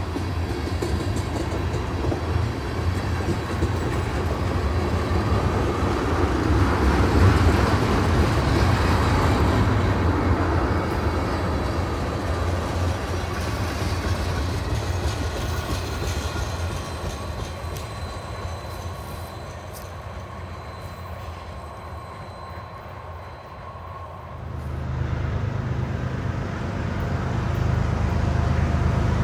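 A CN freight train's cars rolling past on the rails with a clickety-clack, loudest a few seconds in and then fading as the train draws away. About 24 seconds in, a different steady low rumble starts abruptly.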